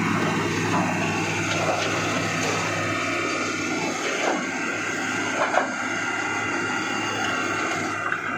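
Hitachi Zaxis 330 hydraulic excavator working: its freshly overhauled diesel engine and hydraulic pump run steadily under load while the boom and bucket move. A few short knocks from the bucket striking rock, the loudest about four and five and a half seconds in.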